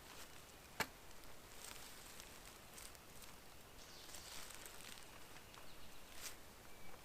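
Faint woodland ambience: light rustling and scattered faint high chirps, with one sharp click a little under a second in.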